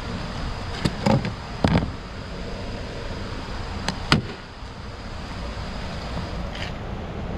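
A steady low mechanical rumble, with several sharp knocks about a second in and again around four seconds in.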